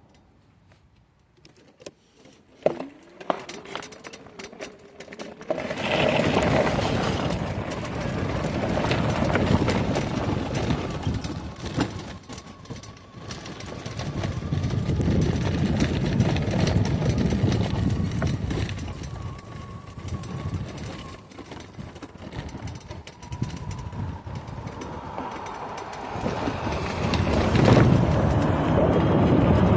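Electric ATV being ridden: a fluctuating rush of tyre and wind noise that starts about five seconds in after a few clicks, with a faint steady whine from the electric motor underneath.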